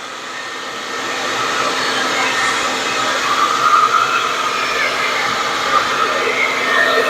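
Handheld blow dryer running steadily, blowing air onto wet acrylic pour paint to push it into blooms; it gets a little louder about a second in.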